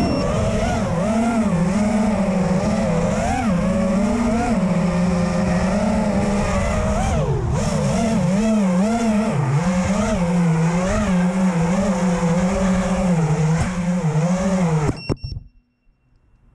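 Five-inch FPV racing quad's four brushless motors and propellers whining, the pitch constantly rising and falling with the throttle. About fifteen seconds in the motors stop abruptly with a couple of clicks as the quad sets down on the ground.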